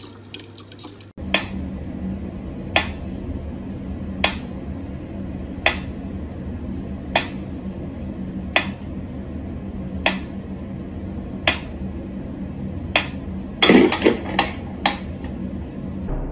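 Mechanical pendulum metronome ticking slowly and evenly, about one sharp tick every second and a half, over a low steady hum. Near the end, several quicker clicks come close together.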